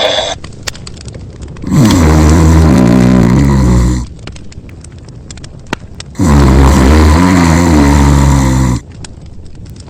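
Cartoon character snoring loudly: two long, low snores, each lasting about two and a half seconds, about four seconds apart.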